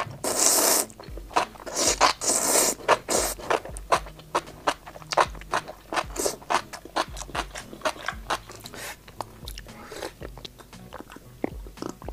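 Close-miked eating: noodles slurped in long hissing draws, then wet chewing of noodles and enoki mushrooms with many quick crunches and smacks, thinning out near the end.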